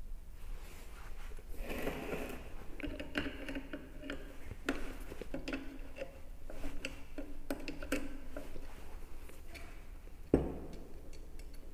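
Steel pliers clicking and scraping against the metal end of a small DC motor as a fitting is worked loose during dismantling, with one sharp knock near the end, the loudest sound, as the pliers come down on the wooden bench.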